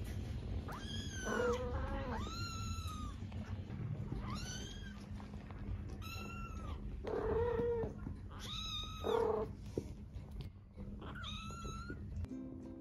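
Kittens meowing repeatedly: about seven short, arching mews spread through, most high-pitched and a few lower.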